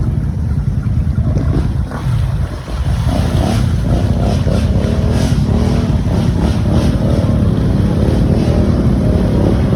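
Off-road vehicle engine running under heavy wind noise on the microphone, its pitch wavering as the throttle changes from about three seconds in.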